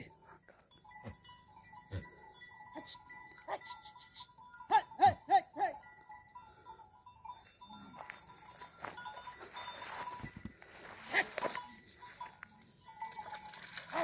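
Herd of goats on the move, with small bells tinkling faintly and a goat giving a quick wavering bleat of four pulses about five seconds in. A stretch of rustling comes around ten to eleven seconds in.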